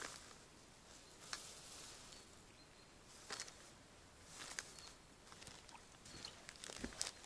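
A few faint, scattered taps and clicks of small things being handled, over a low hiss, the sharpest tap coming near the end.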